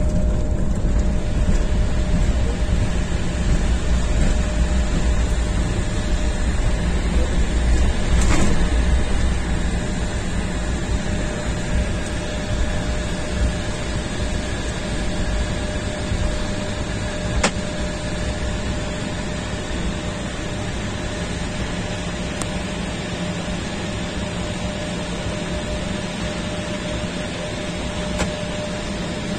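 Airliner cabin noise while taxiing after landing: a steady hum of engines and cabin air with a low rumble from the wheels that eases off gradually. A faint click comes about eight seconds in, and another near seventeen seconds.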